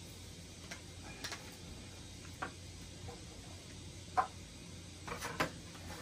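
Scattered small clicks and taps of a plastic pants hanger and its clip being twisted and pried by hand, the part refusing to come off; two clicks come close together near the end.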